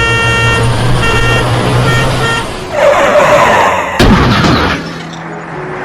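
Loud horn-like blaring in pulsing blasts, then a rush of noise and a sharp bang about four seconds in.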